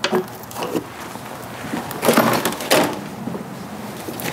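Handling noises on a workbench: scattered light knocks and clicks, with a scraping rustle about two seconds in, as gloved hands take hold of a power steering pump and work at one of its fittings.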